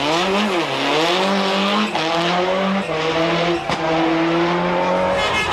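Subaru Impreza WRC rally car's turbocharged flat-four engine under hard acceleration. Its note dips and climbs again, then rises and drops back three times about a second apart as it shifts up through the gears.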